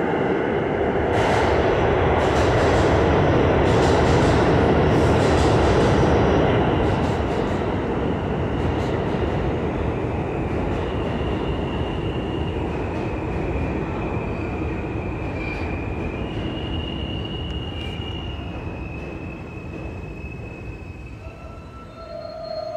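New York City subway train running on steel rails in a tunnel station, loud and clattering at first, then fading away with long high-pitched wheel squeals. A brief tone sounds near the end.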